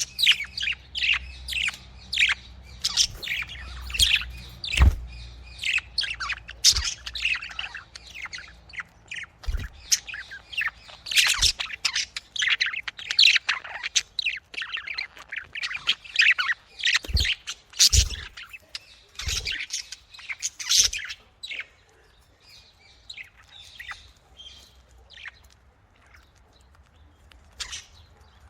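Pet budgerigars chirping and warbling in quick, busy runs of short notes, thinning out to occasional quieter chirps near the end. A few brief low thumps come in among them.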